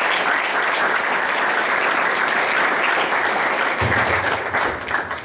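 Audience applauding, the clapping thinning out near the end, with a low hum coming in about four seconds in.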